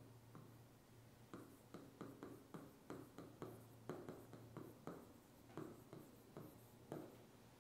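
Faint stylus pen tapping and scraping on the touchscreen of an electronic whiteboard during handwriting: a run of short taps and strokes starting about a second in, over a low steady hum.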